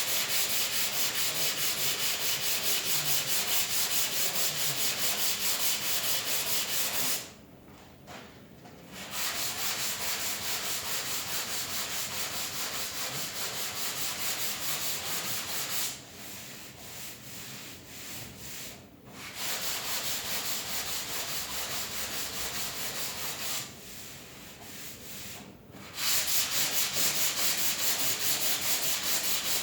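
150-grit sandpaper sanding down dried body filler on a car tailgate panel in quick, repeated strokes. It stops for a couple of seconds about a quarter of the way in, and turns quieter twice later on.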